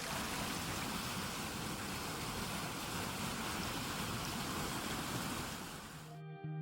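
Steady rushing water, an even dense wash that cuts off suddenly near the end as guitar music comes in.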